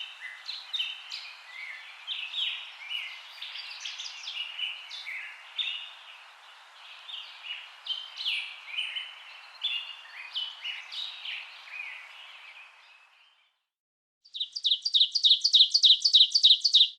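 Birdsong ambience: many small birds chirping over a steady outdoor hiss, which fades out about thirteen seconds in. After a second of silence, a louder, rapid run of identical chirps, about five a second.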